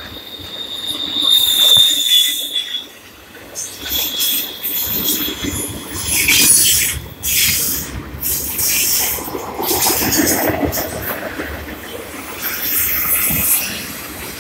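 Intermodal freight train of double-stack container cars rolling past, its wheels and cars rattling on the rails, with a thin high wheel squeal in the first few seconds and again around four seconds in.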